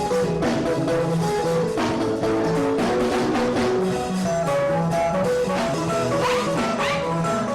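Ensemble music with a steady beat: plucked strings and drums, with repeating melodic notes.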